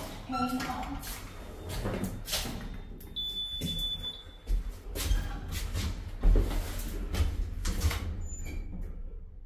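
Faulty lift making loud clunks and knocks as it runs, with a heavy low rumble through the second half. A short high electronic beep sounds about three seconds in.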